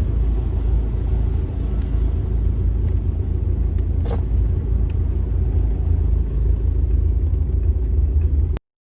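Toyota Land Cruiser 78 Prado driving, a steady low rumble that cuts off suddenly near the end.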